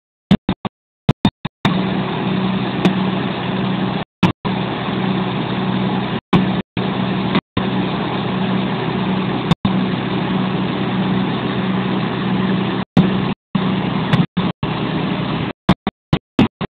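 Diesel engine of a Huddig 1260 backhoe loader running at a steady speed with a low, even hum. The sound cuts out abruptly to silence several times and resumes.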